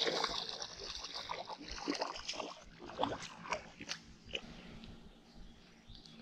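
A hooked smallmouth bass splashing in shallow water as it is pulled to the bank, then scattered clicks and rustles as the fish is grabbed and handled.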